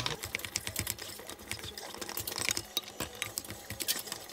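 Silicone spatula stirring cooked rice in a metal pot, a quick irregular run of small clicks and scrapes against the pot.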